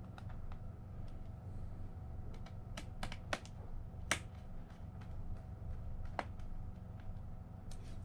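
Plastic snap clips of an Alienware m15 laptop's bottom cover clicking as the panel is pressed down and worked into place. The clicks are scattered and irregular, loudest about three to four seconds in, over a steady low hum.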